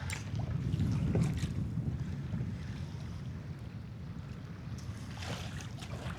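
Wind buffeting the microphone on a small boat at sea, a low rumble that is strongest about a second in, with water around the hull and a few light knocks.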